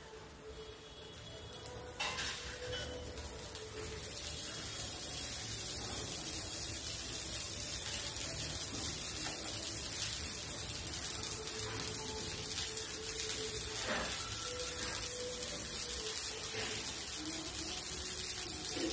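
Dosa sizzling on a hot tawa after oil is drizzled over it: a steady frying hiss that gets louder about two seconds in and then holds.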